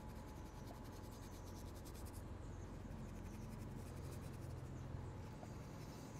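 Faint rustle of dry blackening seasoning sprinkled by hand onto raw chicken breasts on a plate, over a low steady background hum.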